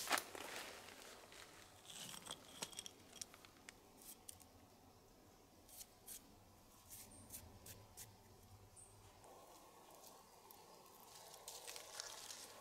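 Faint, scattered clicks and rustling of creek-bed pebbles being shifted as a small piece of old trash is picked up from among them and handled.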